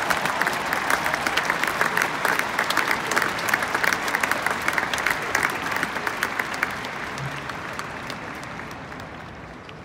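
Crowd applauding, with sharp hand claps close by over the wider clapping of the stands. The clapping thins out and fades away over the last few seconds.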